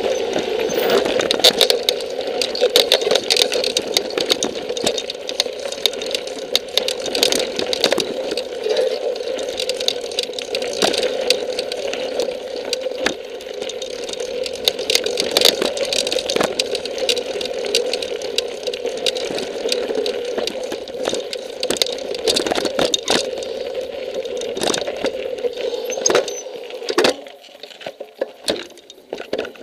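Mountain bike riding over a rocky dirt trail: continuous rattle and clatter of the bike and mounted camera, with a steady buzz underneath and frequent sharp knocks from rocks. It goes quieter for a couple of seconds near the end.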